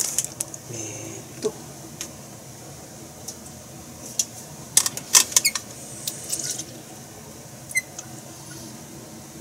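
Kitchen tap running briefly into a measuring cup to measure water for tempura batter, among sharp clicks and knocks of the cup and utensils being handled; the loudest clatter comes about five seconds in.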